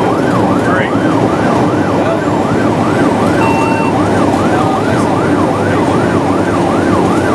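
Fire engine's electronic siren on a fast yelp, its pitch rising and falling about two to three times a second without a break, heard from inside the cab over the truck's engine and road noise.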